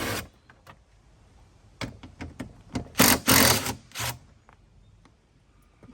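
Clicks and short, loud rasping clatters of plastic as door-trim clips are worked loose from a car door. The loudest rasp comes about three seconds in, with a shorter one just after.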